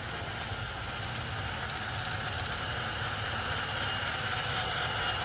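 MTH 4-8-4 J class model steam locomotives running on track: a steady mechanical hum and rail noise from the models, growing slowly louder.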